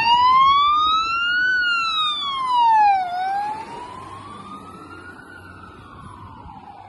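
Fire engine siren on a responding pumper, in a slow wail rising and falling about every three seconds. It is loud as the truck pulls out and passes, then drops away sharply as the truck drives off.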